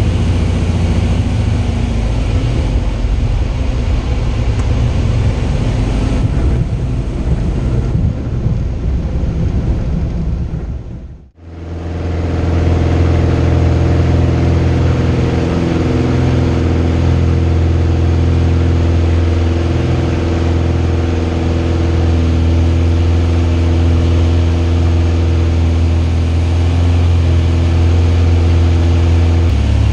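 Van's RV light aircraft's piston engine and propeller heard from inside the cockpit. For about the first eleven seconds a rougher, lower rumble, then a brief drop almost to silence, after which the engine runs at steady takeoff power with a strong droning tone through the takeoff roll and climb-out.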